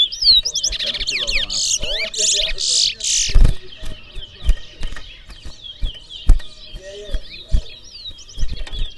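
Caged towa-towa (chestnut-bellied seed finch) singing in a song race: rapid high twittering chirps throughout, with a run of louder, fuller song phrases in the first few seconds. Several sharp knocks are scattered through the second half.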